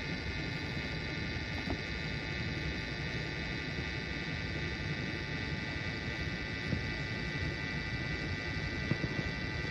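Steady machine hum with a high whine running under it, with a few light knocks near the end.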